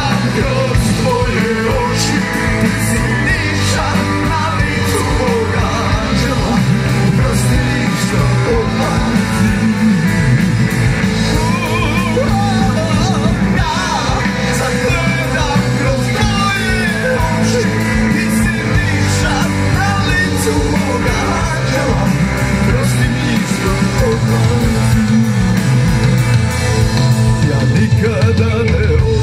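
Live rock band playing through a PA: electric guitars, bass and drum kit with a singer, heard from the crowd.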